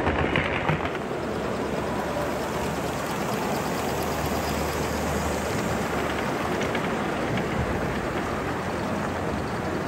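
Gauge 1 model trains running along the layout's track: a steady rolling noise of wheels on rail with faint repeated clicks, over the background hubbub of a large exhibition hall.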